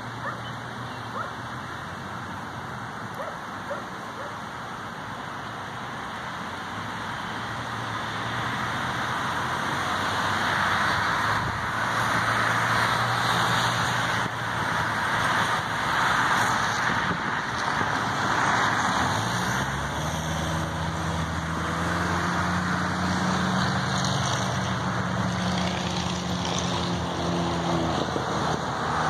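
Road traffic on a busy multi-lane street: the tyre noise of passing cars swells through the middle. About two-thirds of the way in, a vehicle's engine rises in pitch and then runs steadily close by.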